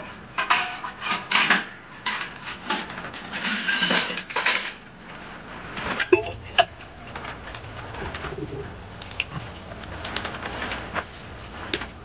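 Steel plates and bowls clattering against each other for the first few seconds, then a stone roller (batta) rubbing and knocking on a flat grinding stone (sil) as wet masala is ground.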